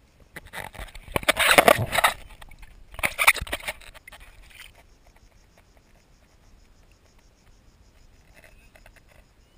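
Two bursts of close, noisy sloshing and scraping as a camera is pushed through shallow water over sand toward a crab, the first about half a second in and the second around three seconds in. After that it is faint and muffled.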